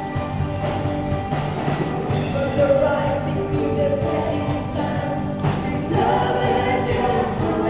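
Live worship band playing a contemporary worship song: several singers on microphones over keyboard, guitar and drums, with a steady beat.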